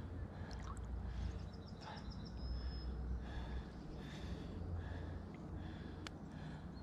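Soft water sloshing and lapping around hands holding a large asp in a shallow river as it is revived and released, over a steady low rumble. A short high trill sounds about two seconds in.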